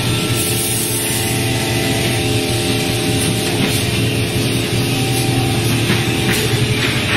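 Machinery of a plywood veneer paving line running steadily: a constant motor hum with several steady tones over a dense mechanical noise.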